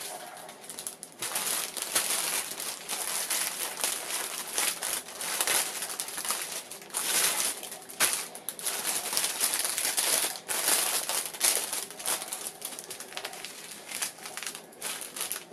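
Clear plastic wrapping crinkling and crackling as it is pulled off a bundle of bagged diamond painting drill packs and the packs are handled. The rustling comes in irregular bursts.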